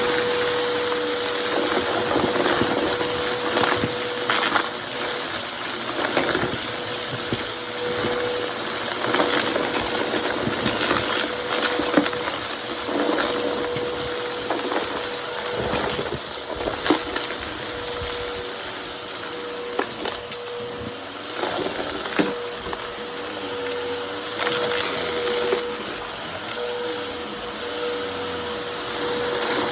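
Vacuum cleaner motor running steadily with a constant whine while it sucks up crunchy dry debris, which rattles and clicks up through the nozzle and hose.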